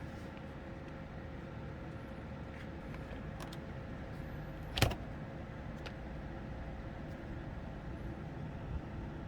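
A steady low hum, with one sharp click about halfway through and a few faint ticks before and after it.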